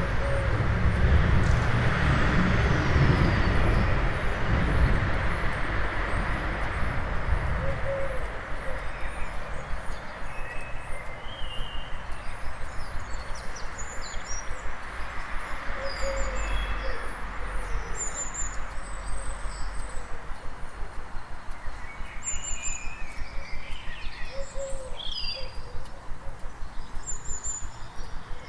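Dawn chorus of birds singing over the steady hum of town traffic. A vehicle's low rumble passes and fades over the first few seconds. A high, rapidly repeated chirp runs through the first third, and more varied bird notes crowd in near the end.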